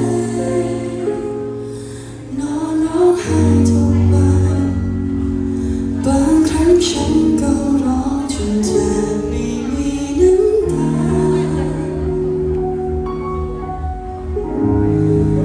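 Live pop ballad: a female singer sings a slow, gliding melody into a microphone over band accompaniment with guitar.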